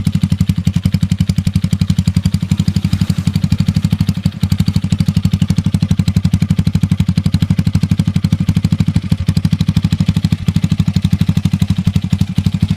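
Motorcycle engine breathing through a Daeng aftermarket exhaust pipe with a big elbow header, idling steadily with an even, rapid pulsing from the exhaust.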